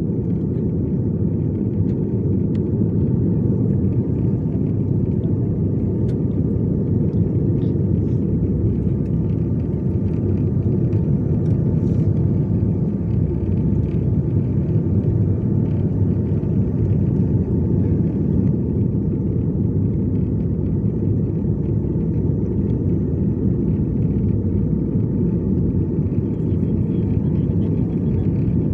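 Steady low rumble inside a jet airliner's cabin on approach to landing: engine and airflow noise carried through the fuselage.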